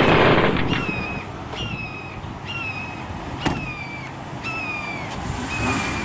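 A vehicle's door-open warning chime ringing over and over, about once a second, with one sharp bang about halfway through.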